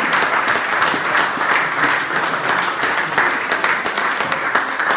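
Audience applauding: many people clapping at once, loud and sustained.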